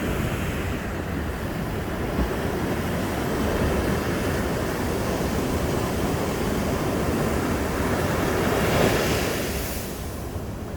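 Sea surf on a beach: a steady rush of waves breaking and washing in, swelling to a louder, hissier wash of breaking water near the end and then easing off.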